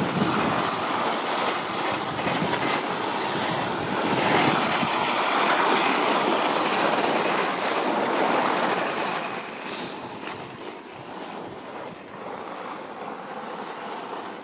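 Wind rushing over the microphone and skis hissing and scraping across packed snow as the skier slides downhill. The noise is loudest midway through and eases off over the last few seconds.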